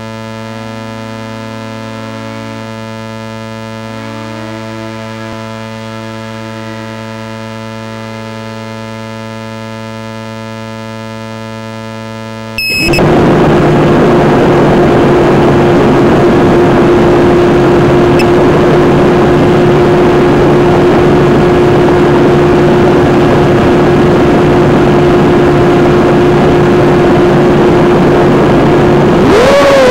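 At first, a steady hum made of several tones. About thirteen seconds in, the quadcopter's four Sunnysky 2240 2300kv brushless motors with 5-inch three-blade props start up and spin at idle with a loud, even whirr and a steady whine: the quad is armed but still on the ground. Near the end the whine starts to rise and waver as the throttle comes up for takeoff.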